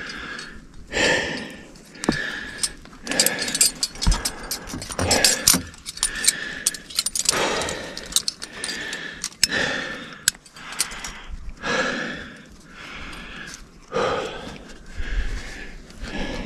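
A rock climber breathing hard, a long breath every second or two, with metal clinking and jangling from the cams and carabiners racked on the harness as they are handled.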